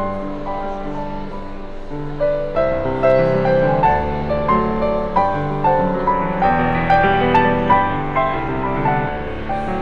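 Grand piano played live, a solo piece of held chords under a melody. It grows louder about two and a half seconds in, with notes struck roughly every half second.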